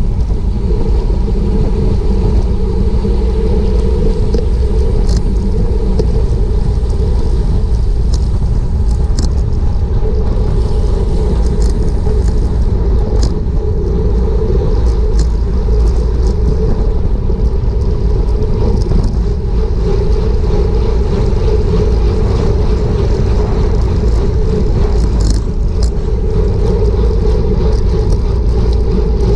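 Wind rushing over a bicycle-mounted action camera's microphone at about 28 mph, with a steady low rumble of road-bike tyres on asphalt and scattered light ticks.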